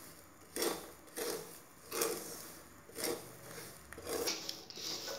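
Wooden spatula stirring peanuts through hot salt in a heavy-bottomed metal kadhai, dry-roasting them: a rhythmic scraping swish repeating about once or twice a second.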